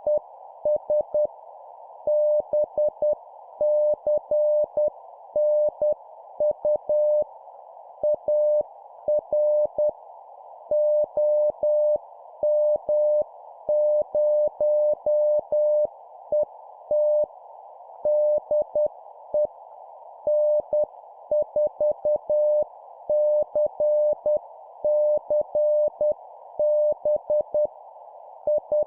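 Morse code (CW) sent at about 10 words per minute: a single steady tone near 600 Hz keyed on and off in dots and dashes, spelling out an amateur radio contact exchange. Behind it runs a narrow band of hiss, like a receiver's filtered band noise.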